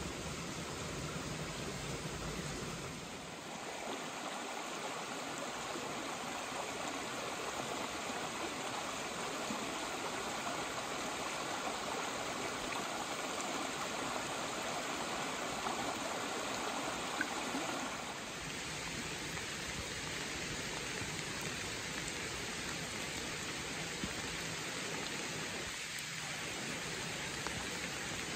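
A creek running high after rain: a steady rush of water. The sound changes in character about three seconds in and again about eighteen seconds in.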